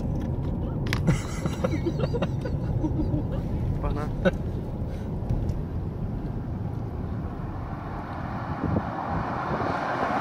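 Steady road rumble inside a moving car, with scattered small clicks and rustles in the first half. Near the end a rising rush of noise comes in.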